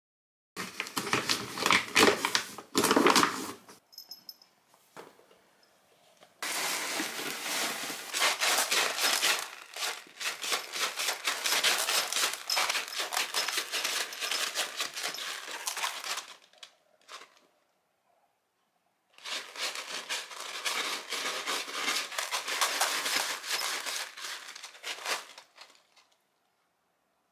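Ragdoll kitten scratching and digging in a tray of litter granules: rapid gritty rustling in three long spells, with short pauses between.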